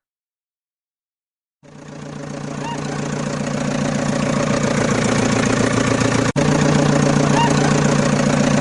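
A motor or small engine running at a steady speed with a fast, even pulse. It fades in about a second and a half in and cuts out for an instant about two thirds of the way through.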